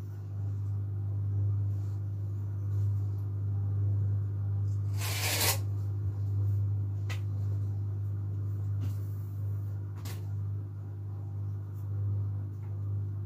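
A steady low hum throughout, with faint clicks and taps of a cutting tool working rolled fondant on a countertop, and one brief louder scrape about five seconds in.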